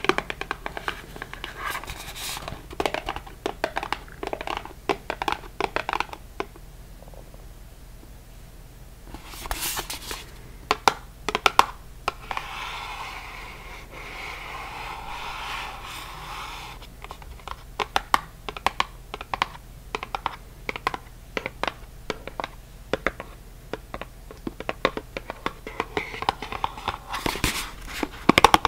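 Long fingernails tapping and scratching on a paperboard product box in a run of sharp, quick taps. There is a quieter pause a few seconds in and a stretch of softer rubbing midway.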